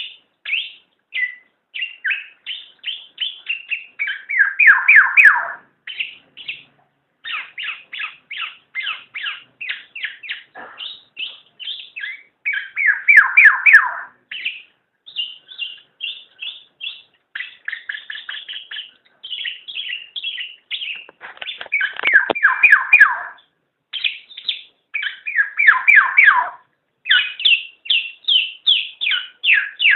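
Black-naped oriole calling: quick runs of short, high notes, broken every few seconds by a longer, lower, harsh chatter that falls in pitch.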